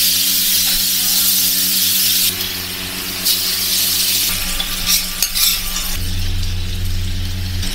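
Food sizzling on a hot flat-top griddle, loud in two stretches, with a metal spatula clinking and scraping on the steel about five seconds in. A steady low hum runs underneath.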